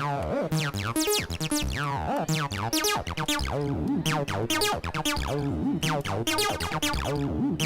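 Electronic dance music played by a DJ: synthesizer stabs and falling pitch sweeps over a steady drum-machine beat.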